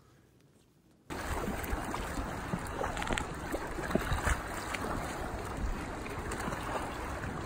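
Near silence for about a second, then wind buffeting the microphone over water around a kayak, with scattered small knocks.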